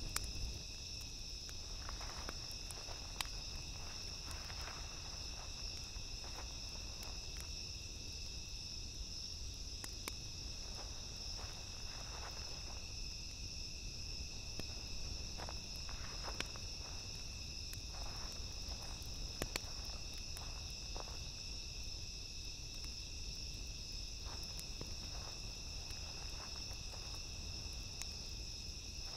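Crickets chirping in a steady continuous chorus, with irregular footsteps through dry grass and straw.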